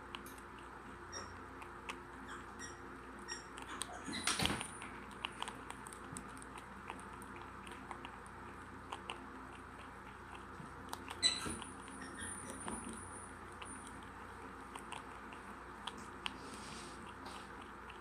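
A prairie dog nibbling a green feed pellet held in its front paws: a run of small crunchy chewing clicks, with two louder, sharper crunches about four and eleven seconds in.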